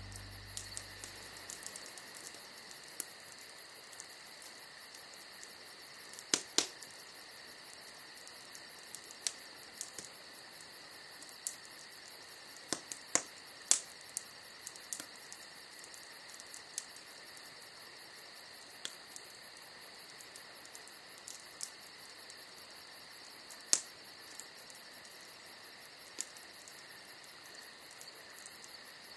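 Wood fire crackling with scattered sharp pops, the loudest about six, thirteen and twenty-four seconds in, over a steady high chirring of crickets.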